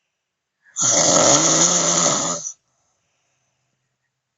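A man snoring: one long, loud snore with a low steady hum in it, starting about a second in and lasting nearly two seconds.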